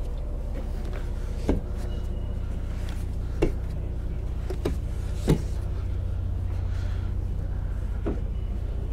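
Upholstered seat backrests on a yacht's flybridge being lifted up, giving about five separate knocks and clicks, the loudest about five seconds in, over a steady low hum.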